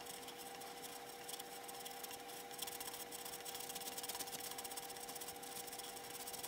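End of a carbon arrow shaft being squared against the abrasive disc of an arrow squaring jig: a faint, steady rubbing and scraping, with a steady faint hum underneath.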